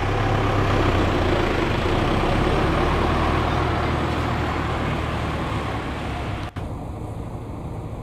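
Steady drone of road traffic: a motor vehicle's low engine hum with road noise. It eases off a little and is cut off for an instant about six and a half seconds in, then goes on quieter.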